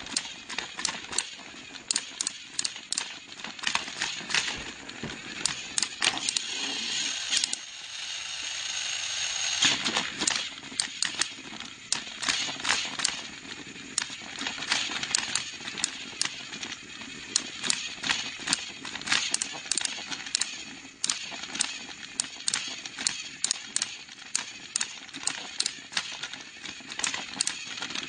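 Motorized toy trains clicking and rattling along their track in a fast, irregular clatter, with a louder rushing noise that builds for a few seconds near the middle and stops sharply.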